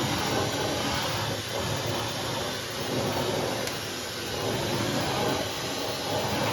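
Hair dryer blowing steadily, used to melt the ice packed in a refrigerator's freezer compartment.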